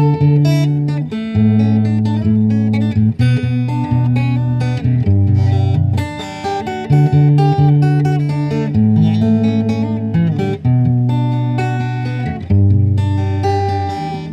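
Acoustic guitar strummed, chords ringing and changing every second or two.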